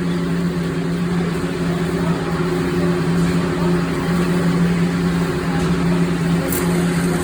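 Welding in progress: a steady hum from the welding machine over the constant crackling hiss of the arc.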